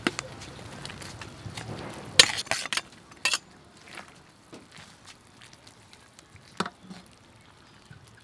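Metal ladle clinking and knocking against a metal cooking pot as vegetables are tipped in and stirred into a boiling soup: a quick cluster of clinks about two seconds in, another a second later, and one more near seven seconds, over a low hiss of the boiling pot that fades after about two and a half seconds.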